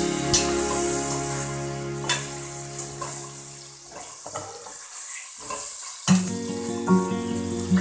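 Pork pieces sizzling as they fry in oil in a stainless steel pot, turned with metal tongs that click against the pot a few times.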